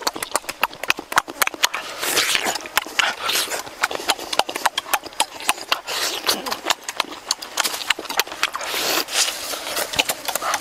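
Wet eating sounds from people eating cooked fish by hand: rapid lip smacking, sucking and slurping at the flesh, with many sharp smacks a second.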